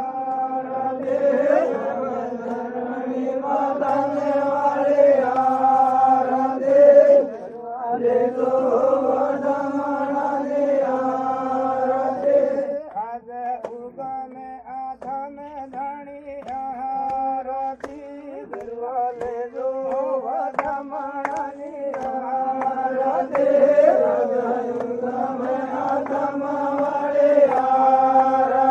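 Devotional folk music of a Vagadi aarti bhajan, with long held melodic notes over a steady lower tone.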